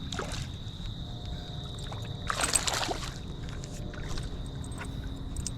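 Water sloshing at the river's edge, with one brief splash about two and a half seconds in, over a low steady rumble and a thin, steady high insect tone.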